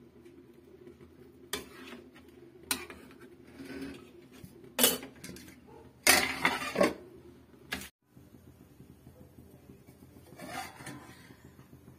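A metal spatula clanking and scraping against a steel kadai, then a steel lid clattering onto the pan. The strikes come as separate sharp clanks, the loudest in a cluster around the middle, with softer clatter near the end.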